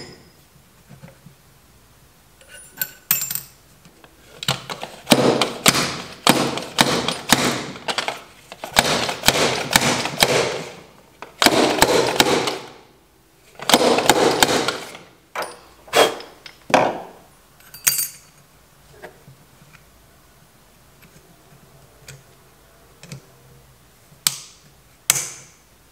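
Metal tapping and knocking on a Honda CB750's aluminium fork lower leg, in quick runs of strokes through the middle, then a few single knocks near the end.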